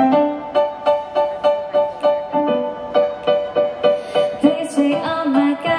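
Electric keyboard playing a steady pulse of repeated chords, the opening of a pop song, with a short moving bass figure underneath. Soft hissing sounds come in near the end.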